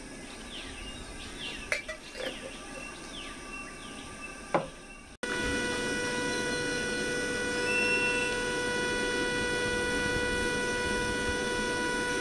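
Birds chirping, with two sharp knocks. Then a stainless-steel kettle on a propane canister camp stove whistles steadily at the boil, one held tone with several overtones over a hiss, growing a little stronger near the end.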